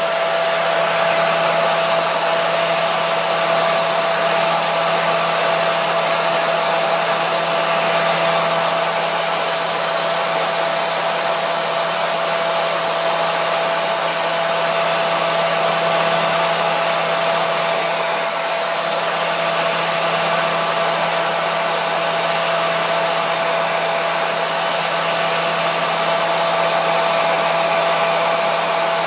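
Electric hair dryer running steadily: a constant rushing blow of air with a steady motor hum and whine that does not change.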